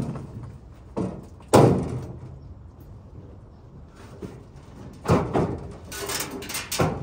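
Sheet-metal clanks and scraping as an old furnace's heat exchanger is worked loose and pulled out of its steel cabinet. There are sharp bangs about a second in, with the loudest just after, and a rattling, scraping stretch near the end as the exchanger comes out.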